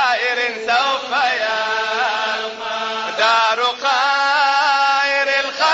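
Arabic devotional nasheed in praise of the Prophet Muhammad, sung as a chant with long, wavering melismatic notes and short breaths between phrases.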